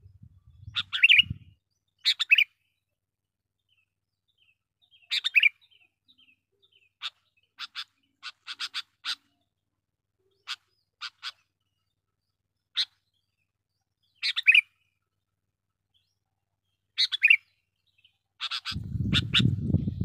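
Sooty-headed bulbul (kutilang) calling: short bubbly phrases every few seconds, with runs of brief, sharp single notes between them. Near the end a low rumbling noise comes in under a quick burst of notes.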